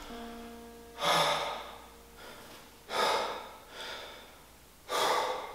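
A man breathing hard, heavy gasping breaths about every two seconds as he catches his breath.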